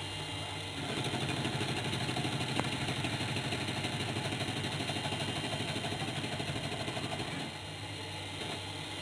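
Myriwell 3D printer's stepper motors whirring through a printing move, with a rapid fluttering texture. The whir starts about a second in and drops away near the end, over a steady background hum.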